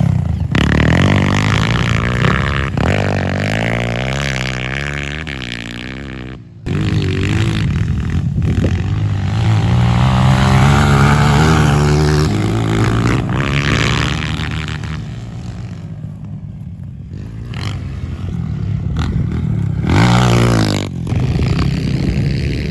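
Honda CRF230 single-cylinder four-stroke dirt bike with a Powercore 2 silencer, revved up and down repeatedly as it is ridden hard. The sound breaks off sharply about six seconds in, and there is a louder rev near the end.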